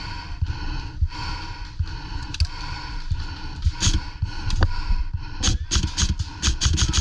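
Airsoft guns firing: scattered sharp snaps, then a quick run of them, roughly five or six a second, from about five and a half seconds in. Under them is the low rumble and thumping of the player moving with a body-worn camera.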